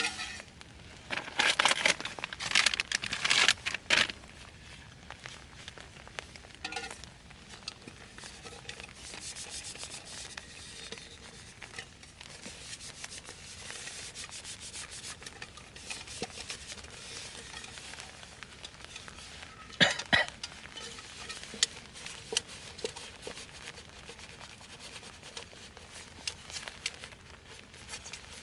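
Rubbing and scraping in dense bursts from about a second and a half to four seconds in, then faint scattered ticks, with a sharp knock about twenty seconds in.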